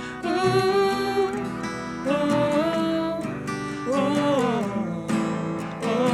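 Acoustic guitar strummed under a slow melody line of long held notes that slide from one pitch to the next, in an instrumental break of a gentle folk song.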